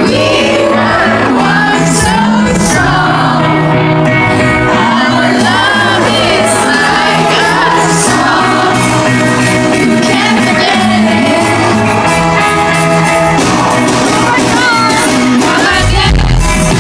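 Live pop song with a band and a female lead vocal, played loud and steady.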